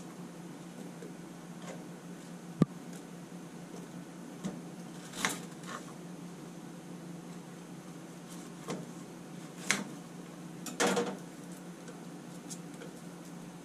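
Chef's knife cutting an onion on a plastic cutting board, with one sharp knock of the blade about two and a half seconds in, then scattered soft knocks and rustles as the onion pieces are handled and set into a ceramic slow-cooker crock. A low steady hum underneath.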